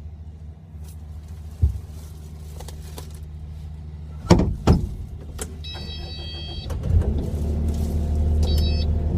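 Kubota skid steer's diesel engine running low and steady, with a few sharp clunks and two spells of high electronic warning beeps. The engine grows louder near the end.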